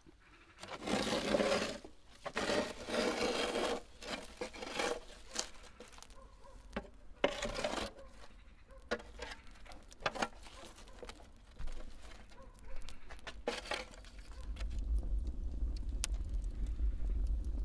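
A metal shovel scraping and pushing burning logs and embers across the floor of a wood-fired brick dome oven, in several scraping strokes with knocks between them. Near the end a steady low rumble sets in as the wood fire burns, with a sharp crackle.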